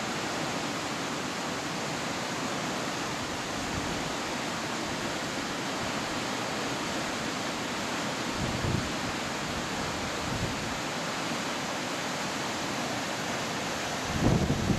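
Steady rush of water flowing through a dam: an even, unpitched hiss. Near the end, wind buffets the microphone.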